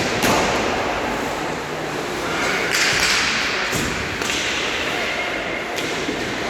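Ice hockey play: skate blades scraping the ice in sharp hissing sweeps, several of them starting suddenly, over knocks of sticks and puck.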